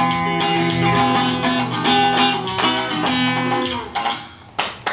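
Live Persian song ending on acoustic guitar with long, held sung notes that step from pitch to pitch and die away a little under four seconds in, followed by sharp strummed guitar strokes near the end.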